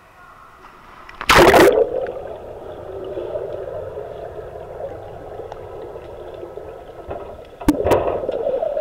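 A loud splash as a boy dives into a swimming pool about a second in, then steady muffled gurgling and bubbling heard with the microphone under the water. A second splash comes near the end as the water breaks at the surface.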